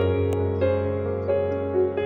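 Slow, soft background music: sustained notes changing pitch about every half second over a low steady drone.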